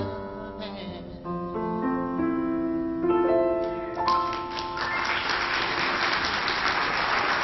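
Piano and male voice close a song, the singer holding a final note with vibrato over the piano. About four seconds in, audience applause breaks out and carries on.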